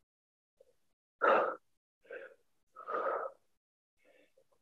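A woman breathing hard from exertion while exercising: a loud breath out about a second in, then softer breaths roughly once a second.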